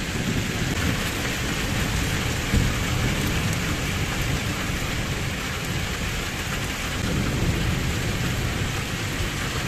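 Torrential thunderstorm rain falling steadily, with low rolls of thunder rumbling underneath that swell a little about a quarter of the way in and again past two-thirds.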